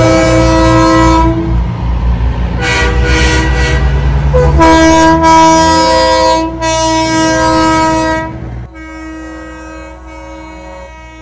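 Semi trucks' air horns sounding in several long, loud chord blasts over the low rumble of diesel engines as the rigs pass. After about nine seconds the rumble drops away and a fainter held horn tone remains.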